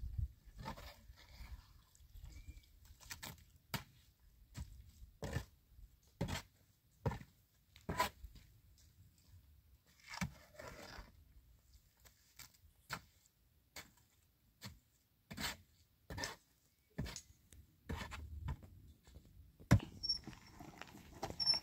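Shovel knocking and scraping as mud is dug and loaded into a metal wheelbarrow, in irregular strokes about a second apart, with a few longer scrapes. Near the end the loaded wheelbarrow is pushed off.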